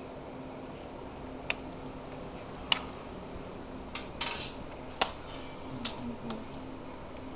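About half a dozen sharp, scattered plastic clicks and snaps as the keyboard of an MSI CR400X laptop is pried free and lifted from its frame, over a faint steady hum.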